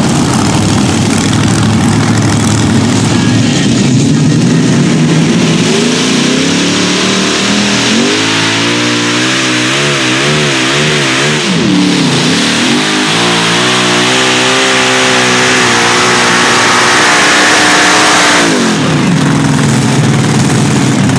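Supercharged, methanol-fuelled V8 Hemi engines of a multi-engine pulling tractor running loud and revving: the pitch climbs, wavers up and down for a few seconds, dips, then holds higher and steadier before falling away near the end.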